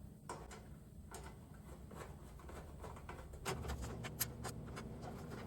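Faint scattered clicks and light knocks of small metal parts being handled, more frequent in the second half.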